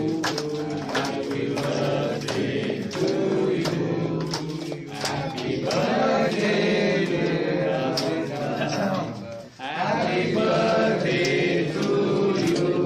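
A group of people singing together in unison, with held notes, and scattered hand clapping.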